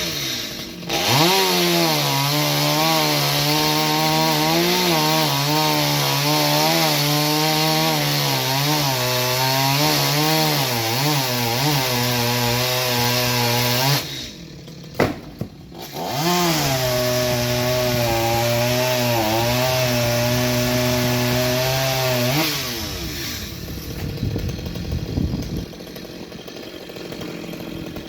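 Chainsaw running at full throttle through wood, its pitch wavering and dipping as the chain bites. It drops off about halfway, revs up again for a second, shorter cut, then falls in pitch and winds down, with the last few seconds much quieter.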